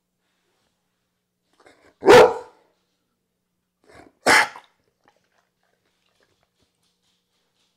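Young grey pit bull-type dog barking twice: two short, loud barks about two seconds apart.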